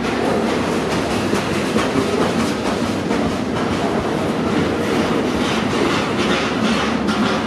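Cars of a long mixed-freight train rolling past at just above walking speed. Their steel wheels make a steady rumble on the rails, with irregular clicks.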